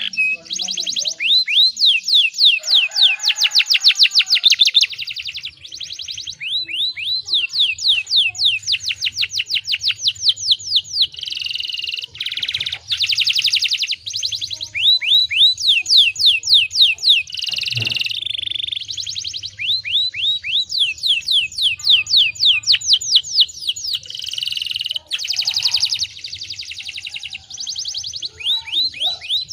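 Domestic canary singing long rolling trills: fast runs of repeated, sweeping high notes that change pattern every second or two, with only short breaks.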